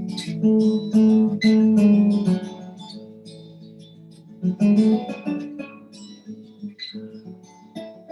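Guitar strumming chords. Several strong strums come in the first two seconds, the playing is softer for a while, and then comes another group of strums around the middle. The playing stops near the end.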